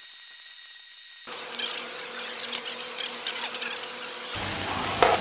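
Meat sizzling and crackling on a hot grill pan, with a few sharp clicks of metal tongs. A faint high steady whine sounds in the first second, and the background changes abruptly twice.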